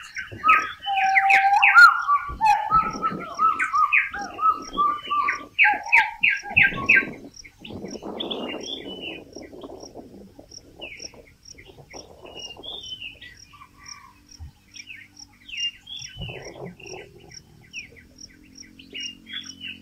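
Birds chirping and calling, dense and loud for the first seven seconds, then sparser, over a high ticking note that repeats evenly two or three times a second. A short rustle comes about eight seconds in.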